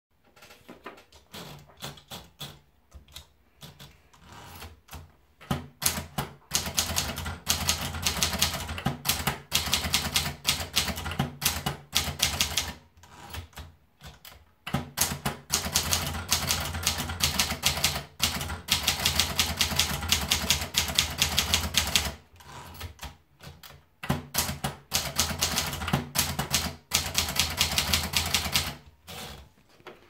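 Triumph Tippa portable manual typewriter. First come softer, scattered clicks as paper is fed in, then fast typing from about six seconds in: rapid runs of sharp key strikes with short gaps. It stops for about two seconds roughly two-thirds of the way through, then resumes until near the end.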